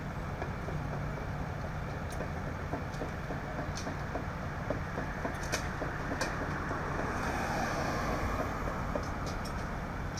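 Steady low rumble of an idling emergency vehicle's engine, with a few light clicks and knocks scattered through.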